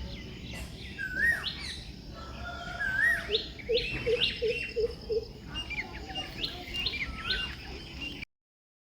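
Several birds calling and chirping, with a whistled call that rises and falls, repeated about every one and a half seconds, over quick high chirps. A run of five short low notes comes about three and a half seconds in. The sound cuts off suddenly near the end.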